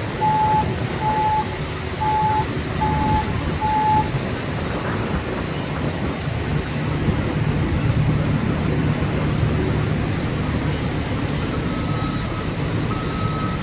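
Heavy construction machinery running, with a backup alarm beeping about once a second that stops about 4 s in; the machinery's low rumble swells in the middle, and near the end a second, higher-pitched alarm begins beeping more slowly.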